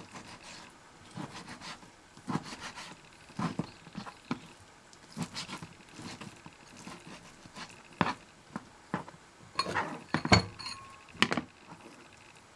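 Kitchen knife cutting raw white fish fillets into small pieces on a cutting board: irregular taps and knocks of the blade against the board, a few louder knocks near the end.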